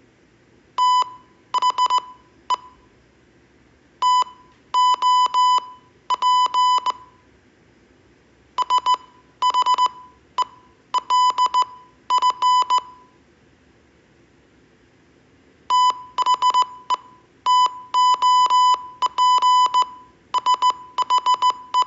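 Morse code practice tone: a steady beep of about 1 kHz keyed on and off in short dots and longer dashes. The dots and dashes are grouped into letters and words, with gaps of a second or more between the groups.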